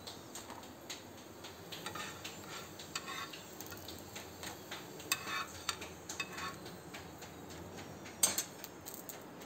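Kitchen utensils and cookware clinking and knocking at a gas stove, in short scattered strikes, with one sharper knock near the end.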